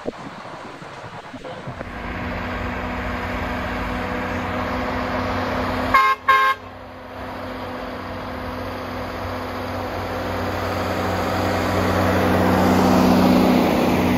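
M35A2 army truck's multifuel diesel engine running as the truck drives up, getting louder as it draws close and loudest near the end. About six seconds in, a horn gives two short toots.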